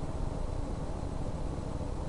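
Steady low background rumble and hiss: the room tone and microphone noise of a voice-over recording, with no distinct event.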